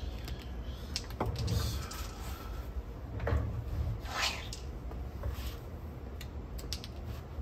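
Handling noises on a workbench: a few soft knocks and short rubbing swishes as parts and tools are moved and set down, over a low steady room hum.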